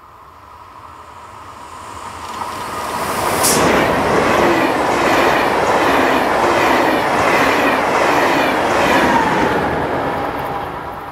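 ÖBB Railjet passenger train passing at speed. Its approach is heard as a rising rail whine. A sharp rush comes as the front reaches the microphone about three and a half seconds in, then a steady run of rhythmic wheel clatter over the rail joints, and the sound fades as the train moves away near the end.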